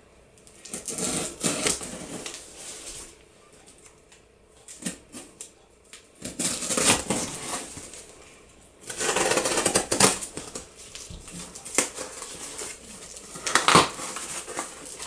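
Cardboard shipping box being cut open and handled: a knife slitting the packing tape, with rasping tape, rustling cardboard flaps and a few sharp clicks and knocks in irregular spurts.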